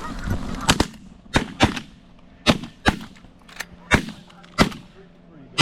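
A volley of about ten shotgun blasts from several hunters firing at once. The shots come quickly and unevenly, some close together in pairs, and each ends in a short echo.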